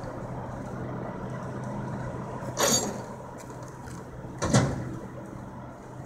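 Heavy diesel engines of tow trucks and an excavator running steadily during a truck recovery. Two short, loud noises cut through, about two and a half and four and a half seconds in: the first hissing or scraping, the second a heavier clank.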